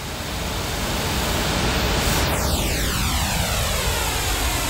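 Pink noise from two speakers playing the same signal, picked up by a microphone. About two seconds in, comb filtering sets in as the microphone moves off the centre line: sweeping notches give the noise a hollow, phasing sound that grows more pronounced.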